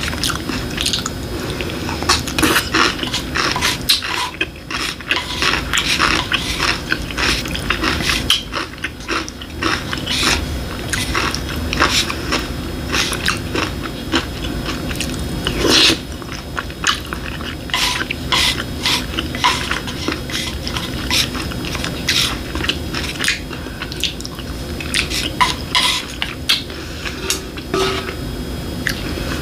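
Close-miked chewing and wet mouth clicks of someone eating egg over rice, mixed with light taps of a wooden spoon and chopsticks on the plate.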